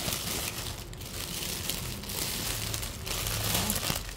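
Plastic mailer bag crinkling and rustling as it is handled.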